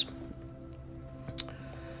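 Quiet background music with steady held notes under a pause in speech, and one small click about one and a half seconds in.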